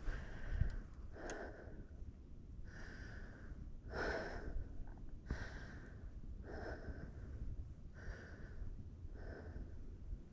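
A person breathing hard close to the microphone: about eight raspy breaths in steady rhythm, roughly one every second and a bit.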